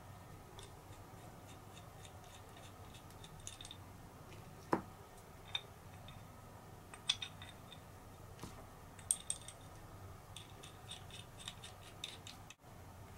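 Faint scattered clicks and light metallic taps from a cam lever with a threaded steel stud being turned and worked in the hands, with a few sharper clicks among them.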